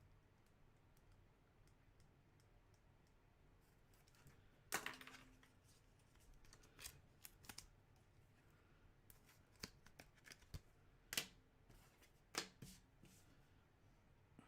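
Faint handling of trading cards: soft rustles and scattered light clicks as cards are slid and shuffled, with a few sharper clicks about five, eleven and twelve seconds in.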